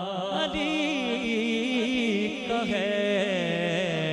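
Urdu devotional manqabat: a male voice draws out a long, wavering melismatic line over a steady low drone.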